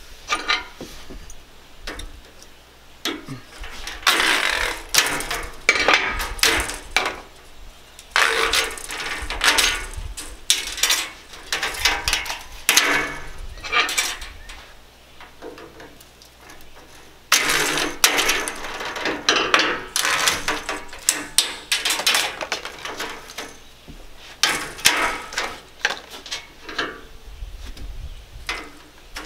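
Old metal spline and screen being pried and pulled out of the channel of an Andersen aluminium window-screen frame: runs of loud rasping metal scraping and rattling, a few seconds each, with pauses between.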